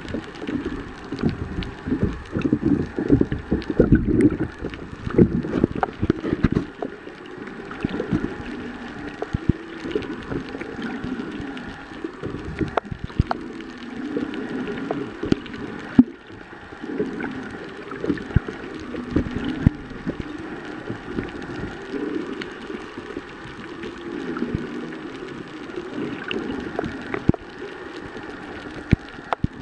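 Underwater sound picked up by a camera filming below the surface: a muffled, continuous sloshing and rumbling of moving water, with many scattered short clicks and taps.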